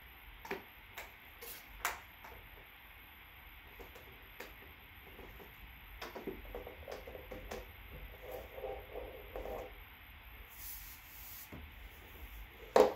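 White PVC pipes and elbow fittings being handled and pushed together on a hard floor: scattered light plastic clicks and knocks with some rubbing, and a sharper knock near the end.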